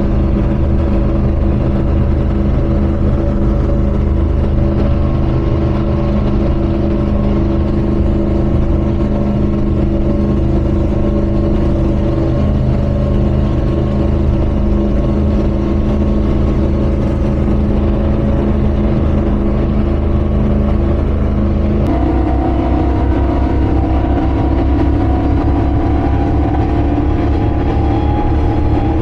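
2,400-horsepower Donzi 38 ZRC race boat's engines running loud and steady at high speed, with wind and water rushing past the open cockpit. About 22 seconds in, the sound changes abruptly and the engine pitch then climbs slowly as the boat gains speed.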